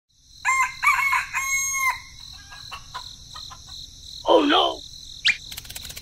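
A rooster crowing once, in several pitched segments ending on a held note, over a steady background of insects and scattered bird chirps. About four seconds in, a shorter, lower animal call wavers briefly.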